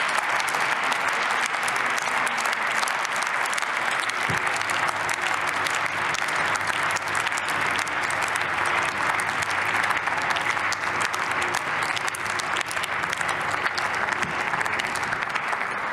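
Steady applause from the members of a parliamentary chamber, many hands clapping at once, following the end of a speech.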